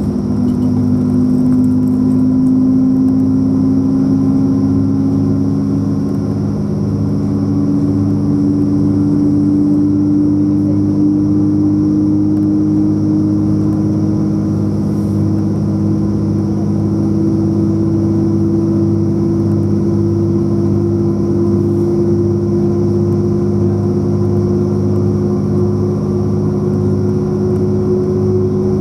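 Inside a British Rail Class 180 diesel multiple unit accelerating away from a station: a steady underfloor diesel drone, with a whine that climbs slowly and evenly in pitch as the train gathers speed.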